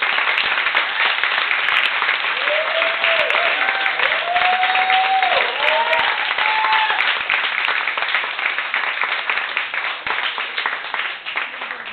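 Audience applauding loudly after a song recital. Between about two and seven seconds in, a few voices cheer over the clapping in rising-and-falling calls. The clapping thins slightly near the end.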